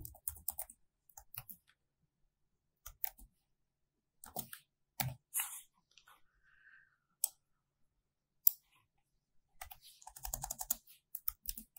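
Typing on a computer keyboard: scattered single keystrokes with pauses between them, then a quicker run of keys near the end.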